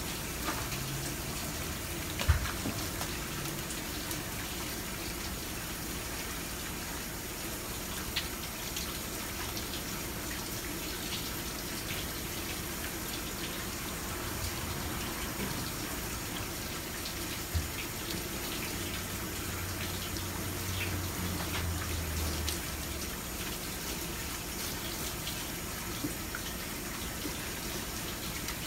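Tap water running steadily from a faucet onto a plastic cutting board as squid is rinsed and rubbed clean by hand. A few brief knocks come through, the sharpest about two seconds in.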